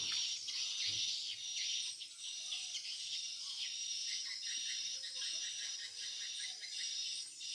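Dense, high-pitched twittering and chirping of swiftlets, as in a swiftlet lure-call recording, with a quick run of about five ticks a second through the middle.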